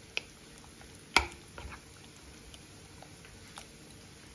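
A spoon stirring chicken pieces in a thick marinade in a ceramic bowl: soft squishing, with a few sharp clicks of the spoon against the bowl, the loudest about a second in.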